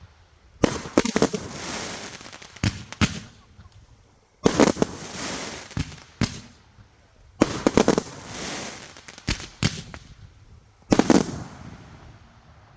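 Consumer fireworks going off: four loud bangs a few seconds apart, each followed by a couple of seconds of crackling that fades away.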